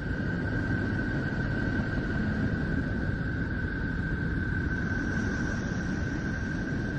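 The 'sound of Neptune': spacecraft radio emissions converted to audio, heard as a steady rumbling hiss with one constant high tone over it.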